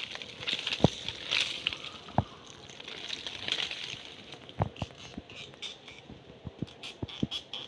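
Fingers scraping and breaking open dry termite mud tubes on tree bark: gritty scratching and crumbling in short bursts, with several sharp taps, the loudest about a second in.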